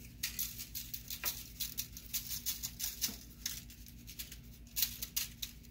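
Blackening seasoning shaken from a shaker onto a fish lying on aluminium foil: several short bursts of fine rattling and pattering.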